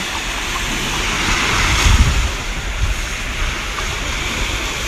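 Small waves washing onto a sandy shore, with wind rumbling on the microphone in uneven gusts, strongest about two seconds in.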